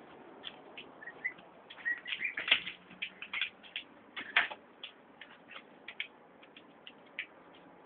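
Three-week-old domestic gosling peeping: a string of short, high calls, a few of them rising, with the loudest ones about two and a half and four and a half seconds in.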